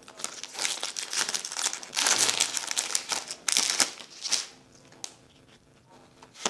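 Foil wrapper of a Pokémon TCG Plasma Blast booster pack crinkling and tearing as it is opened by hand, in dense bursts that stop about four and a half seconds in, with one click near the end.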